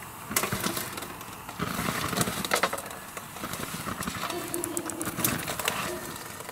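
Molten metal poured from a crucible onto a rubber toy figure in a metal baking tray, crackling and sizzling with many sharp pops as the toy burns and flames flare up.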